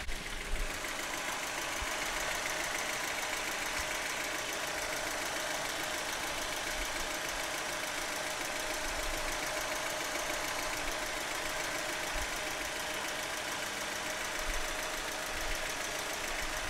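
Toyota 1600 EFI four-cylinder engine idling steadily with the battery disconnected, kept running by the alternator alone.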